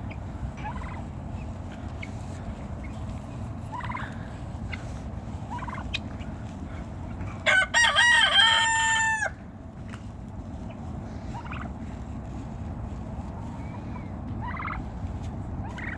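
A rooster crows once, loudly, about halfway through, the call lasting under two seconds with a wavering start and a held end. Scattered soft short calls from the poultry flock come before and after it.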